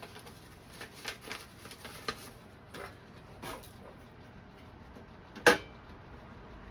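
Small clicks and knocks of bolts and a handle being handled and fitted against a toolbox, with one loud sharp knock about five and a half seconds in.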